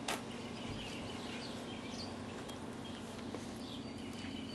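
Outdoor ambience of small birds chirping, many short quick calls scattered throughout, over a steady low hum, with one brief sharp knock right at the start.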